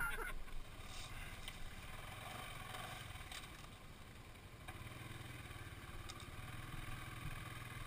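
ATV engine running steadily at low revs, its hum firming up about five seconds in.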